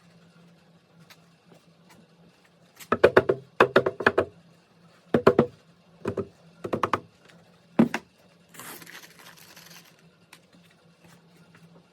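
Clusters of sharp knocks and clatters, several in quick succession, from about three to eight seconds in, followed by a hiss lasting about a second and a half.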